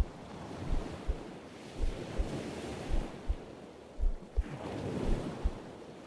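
Slow, steady heartbeat, a low double thump about once a second, over the hiss of distant surf and wind that swells and eases.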